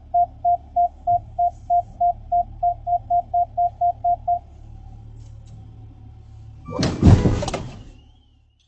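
Car proximity-warning beeper sounding short beeps at a single pitch, coming faster and faster and then merging into a steady tone as a car backs up toward the front bumper, over a steady low engine hum. About seven seconds in comes a loud, short impact as the reversing car hits the front of the car.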